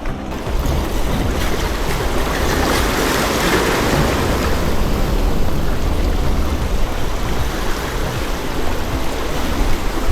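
Sea waves breaking and washing in, swelling to a peak about three to four seconds in, with wind rumbling on the microphone.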